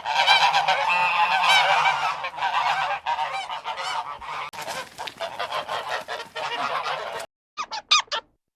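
A flock of geese honking, many calls overlapping. It cuts off abruptly about seven seconds in, followed by a few short, separate calls.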